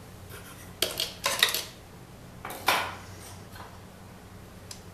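Metal clinks and clatters of needle-nose pliers and a small fastener being worked up through a hole in a cramped wooden assembly: a click a little under a second in, a quick cluster just after, and a sharper one near three seconds.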